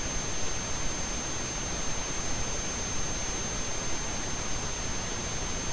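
Steady hiss of the recording's background noise with a constant thin high-pitched whine running through it; no distinct events.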